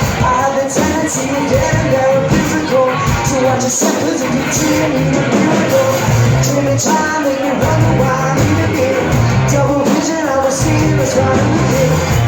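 A rock-pop song with a singing voice over a steady drum beat.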